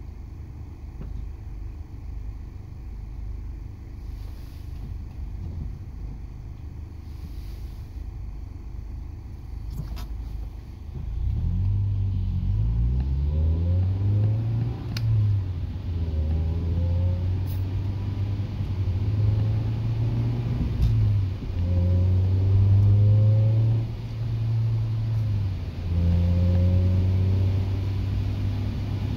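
1996 Acura Integra GSR's 1.8-litre VTEC four-cylinder heard from inside the cabin: a low rumble while creeping in traffic, then about ten seconds in the engine note picks up as the car pulls away. The note climbs and drops back several times as the car shifts up through the gears.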